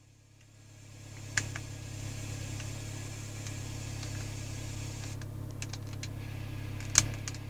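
Steady low hum with a faint hiss over it inside a car, fading up over the first two seconds. Two sharp clicks, one about a second and a half in and one near the end, come from buttons pressed on the car stereo head unit.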